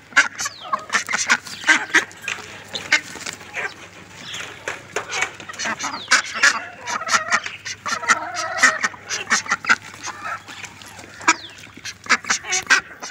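A mixed flock of chickens, ducks and helmeted guineafowl calling: many short, sharp clucks, squawks and quacks overlapping in quick succession, with a few longer calls about two-thirds of the way through.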